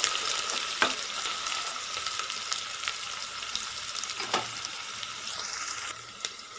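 Freshly added sliced onions sizzling in hot oil and ghee in an aluminium pressure cooker, a steady frying hiss that slowly eases off. A couple of sharp clicks cut through it, about a second in and again past the middle.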